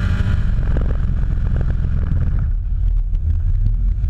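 Burnout car's engine running, heard from inside the cab as a loud low rumble with wind buffeting the microphone; the higher-pitched part of the noise dies away about two and a half seconds in.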